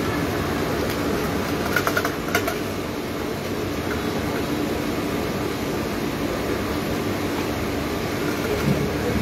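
A steady machine hum with a faint constant tone, with a few light clicks about two seconds in.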